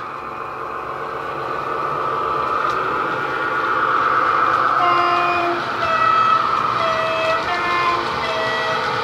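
Sound decoder of a model Class 41 Warship diesel-hydraulic locomotive playing its diesel engine running, through the model's speaker. From about five seconds in, its two-tone horn sounds several short blasts, alternating high and low notes.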